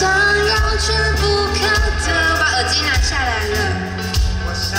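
Live band music: a lead singer holds long notes that slide in pitch, over steady low bass notes and drum hits.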